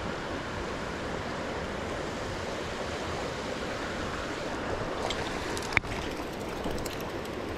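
Shallow mountain stream flowing steadily over a rocky, stony bed, with a single sharp click a little under six seconds in.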